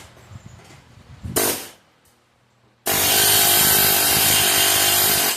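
Ingersoll Rand 114GQC pneumatic air hammer, rated at 3,500 blows a minute. It fires a short burst about a second in, then hammers steadily and loudly from about three seconds in before stopping abruptly.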